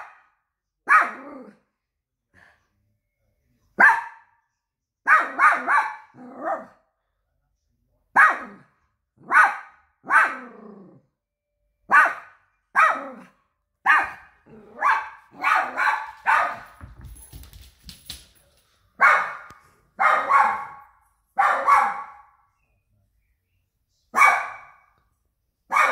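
A dog barking repeatedly: short, sharp barks every second or two, sometimes in quick runs of two or three, with a brief pause in the barking about two thirds of the way through.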